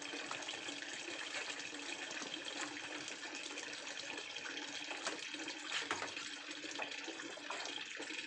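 Water running steadily, as from a tap or hose, with a few light knocks and splashes.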